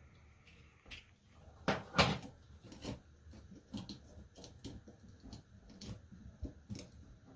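Irregular clicks and knocks of small hard objects being handled, with the loudest double knock about two seconds in and lighter taps after it.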